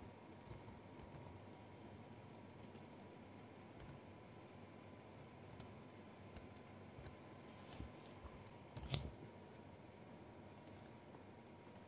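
Faint, scattered keystrokes on a computer keyboard, with a louder cluster of clicks about nine seconds in, over a faint steady high tone.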